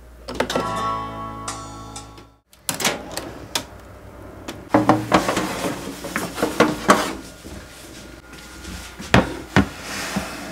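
Balmuda oven's start sound, a guitar-like chord that rings for about two seconds as the dial is pressed to begin the bake, then cuts off. After that come clicks and clatter from the oven door and a metal baking tray being handled, loudest in the middle and again near the end.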